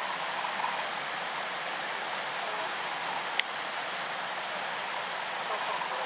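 Water pouring through a partly frozen waterfall, a steady rushing hiss, with a single sharp click a little past halfway.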